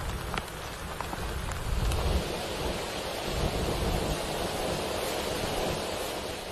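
Thunderstorm: steady rain falling, with a low rumble of thunder about two seconds in.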